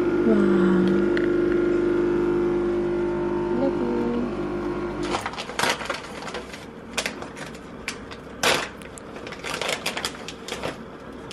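Coffee machine running steadily through its first cleaning rinse, its pump stopping suddenly about five seconds in. After that, plastic packaging crinkles in short irregular bouts.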